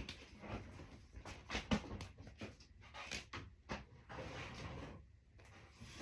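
Scattered knocks, clicks and light clatters of kitchen things being handled and set down, the sharpest about one and a half seconds in.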